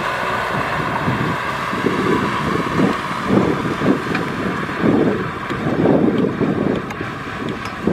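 Kubota M6040SU tractor's diesel engine running steadily under load as it pulls a disc plough through dry soil, with wind buffeting the microphone in irregular gusts.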